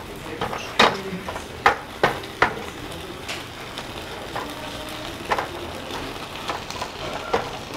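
Fried rice sizzling in a black pan while a metal ladle stirs it, scraping and clinking against the pan. Several sharp scrapes come in the first few seconds, then a few more spaced out later.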